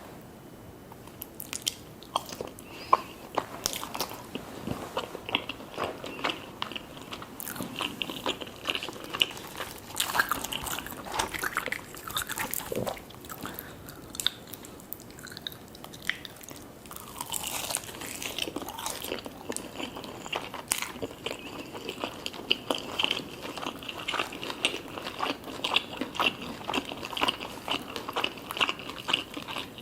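A person biting into and chewing crispy fried chicken: a steady run of sharp crunches with chewing between them, starting about a second in.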